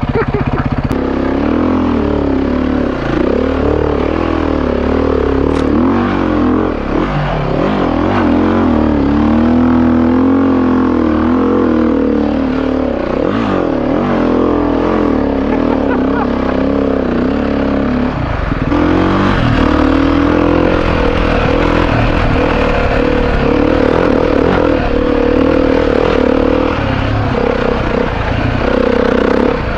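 Enduro dirt bike engine, heard up close from the bike while it is ridden, revving up and down continuously as the throttle opens and closes.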